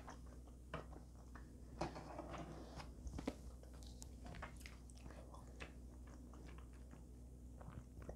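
Quiet chewing and mouth sounds of a person eating, with scattered faint clicks.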